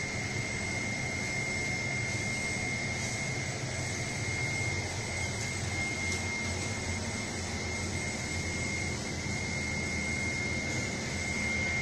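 Air bubble film making machine running: a steady mechanical drone with a constant high whine above it.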